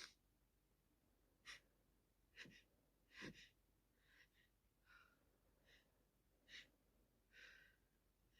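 A person with the flu breathing faintly in short, quick breaths, about one a second, with a slightly longer breath near the end.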